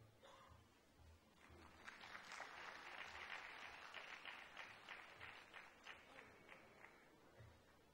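Faint audience applause that swells about a second and a half in and dies away near the end.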